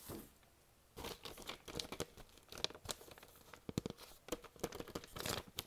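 Paper inner sleeve of a vinyl LP crinkling and rustling as it is handled, with many irregular sharp clicks, starting about a second in.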